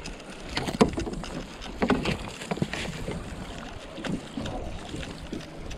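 Irregular knocks and water splashes at the side of a plastic fishing kayak while a hooked fish is brought alongside.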